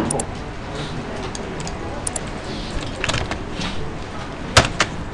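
Scattered clicks of computer keyboard keys and a mouse, with two sharp clicks close together near the end, over a steady room hiss.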